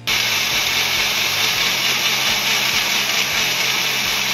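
Wonderchef personal blender switched on, its motor running with a steady high whir as it blends yogurt, mango ice cream and ice cubes into mango lassi.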